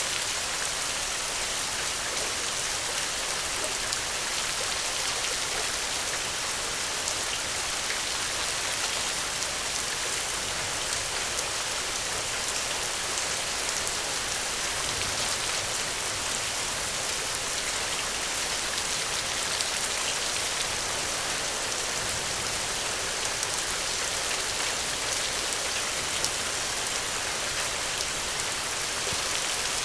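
Steady rain: an even hiss with faint ticks of individual drops, unchanging throughout.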